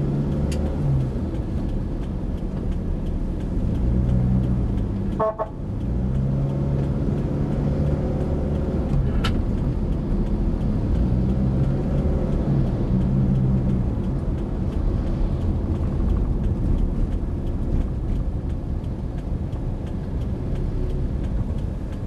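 Car engine and road noise heard from inside the cabin while driving slowly in traffic, the engine note rising and falling every second or two, with horn toots.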